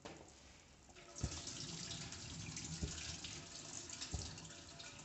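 Mutton stock boiling hard in a steel pot, a steady bubbling that grows louder about a second in. A few soft low knocks come through it.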